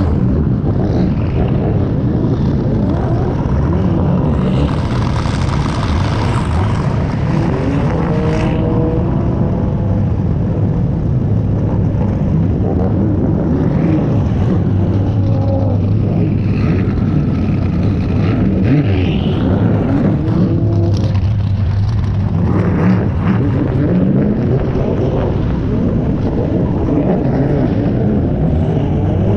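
Drift car engines running at low speed in a slow-moving pack, with a steady low drone and engine pitch rising and falling again and again as throttles are blipped and eased.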